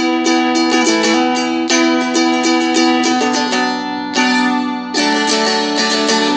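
Seagull Merlin, a four-string fretted dulcimer, strummed in a quick, even rhythm. It goes from an E chord to a B minor, with the chord changing about halfway through and again near the end.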